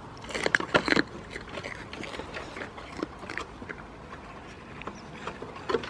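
Goat biting into and crunching a raw carrot held out by hand: a quick cluster of loud crunches about half a second in, then scattered smaller bites and chewing clicks, with another few crunches near the end.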